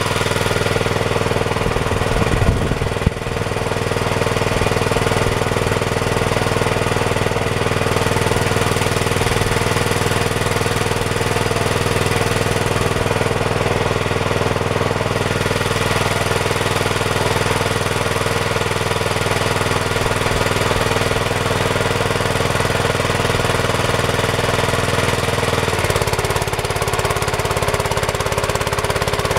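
Homemade minitractor's small engine running steadily, with a couple of sharp knocks about two to three seconds in. Near the end the tone of the running changes.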